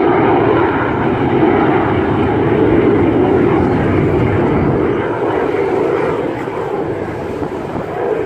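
Aircraft flying overhead: loud, steady engine noise that eases off a little after about five seconds as it moves away.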